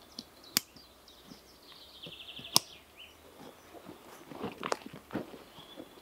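Footsteps on dry forest-floor litter, crunching and rustling, thickest about four to five seconds in. Two sharp clicks cut in, about half a second and two and a half seconds in. A short, fast bird trill and a few high chirps sound in the background.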